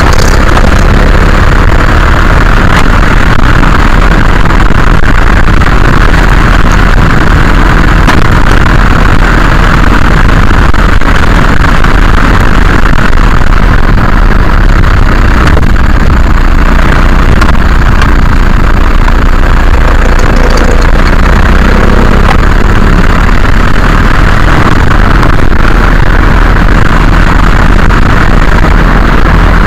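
Loud, steady road and tyre rumble of a VW Golf Mk4 TDI on the move, heard close to the suspension, with a few sharp knocks over it. The knocks are the annoying suspension knocking/rattling the owner is trying to trace.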